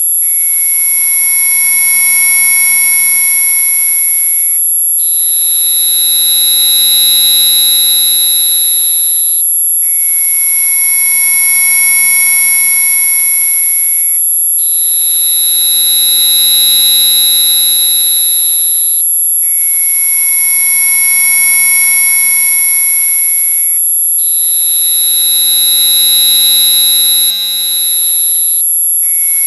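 Synthesized mosquito-repellent tone audio: a loud, piercing high-pitched whine with several lower steady tones layered beneath it. The mix of tones changes about every five seconds, with a brief break at each change.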